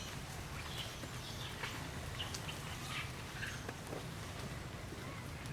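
Outdoor animal ambience: scattered short, high chirps and clicks over a steady low rumble.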